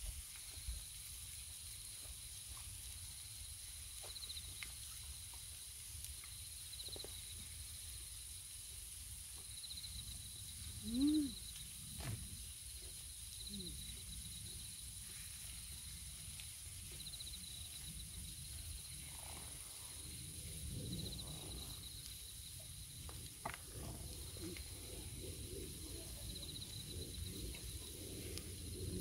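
Night insects chirping steadily, a high continuous trill with pulsing chirps beneath it, over a faint low background rumble. A short voice-like sound rises and falls about 11 seconds in.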